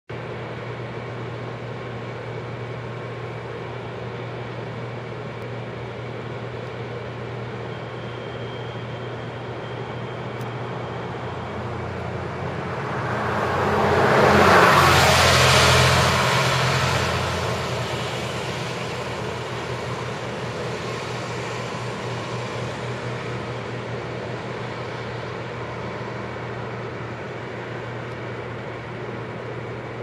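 Steady noise with a constant low hum. About halfway through, a road vehicle passes, its sound swelling over a few seconds to the loudest point and then fading away.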